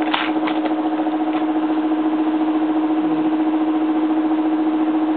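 Aoyue hot-air rework station running, its air pump giving a steady, evenly pulsing hum as hot air is blown onto the GPU to heat the solder balls. A few light clicks in the first second.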